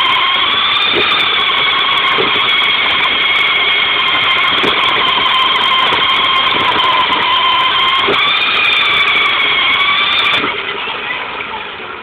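Remote-control car's electric motor and gears whining steadily at very close range, the pitch wavering slightly as the speed changes, with a few knocks as it bumps along. The whine cuts off suddenly about ten seconds in, leaving light clicks and rattles.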